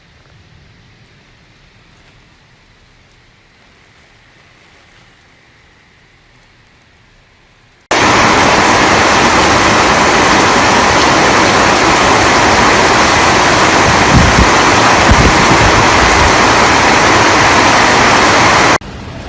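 Rainstorm noise. A faint steady hiss of rain gives way abruptly, about eight seconds in, to a very loud, even rush of heavy rain and wind with some low rumbles, which cuts off suddenly near the end.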